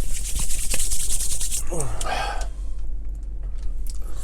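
Rustling and rubbing for about a second and a half, then a short vocal sound that falls in pitch.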